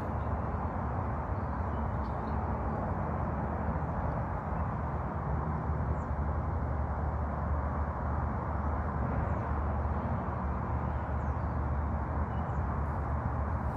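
Steady outdoor background rumble with a low hum, and a few faint, brief high bird chirps scattered through it.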